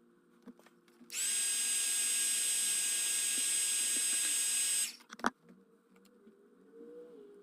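A small electric repair tool runs steadily for about four seconds with a hissing, high whine, then cuts off, followed by a sharp click.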